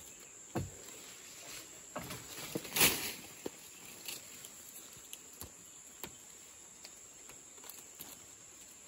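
Leaves and twigs rustling and crackling as Assyrian plum fruits and leaves are plucked by hand from a cut branch, in short scattered bursts, the loudest about three seconds in. A steady high insect drone runs underneath.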